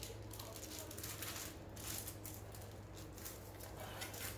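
Plastic spreader scraping and smearing body filler on a wax-paper mixing board: a run of short, soft scrapes.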